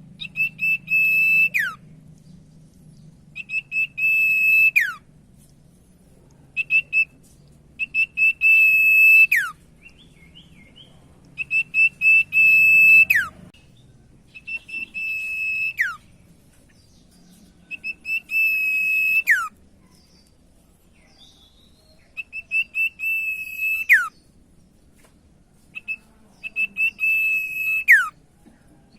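Common iora (cipoh) singing about eight repeated phrases, one every few seconds. Each phrase is a stuttering, high, steady whistle that ends in a sharp falling note.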